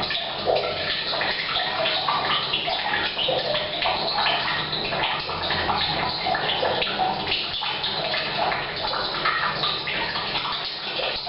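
Tap water pouring from a pipe into a water tank, mixed with rain falling on the roof, splashing steadily and echoing in a bathroom.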